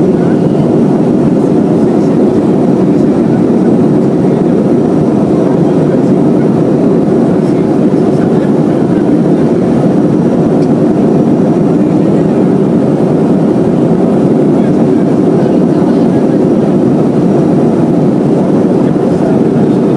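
Steady cabin noise of a Boeing 737-300 in flight, its CFM56-3 jet engines and the rushing airflow heard from a window seat as a loud, even low rumble.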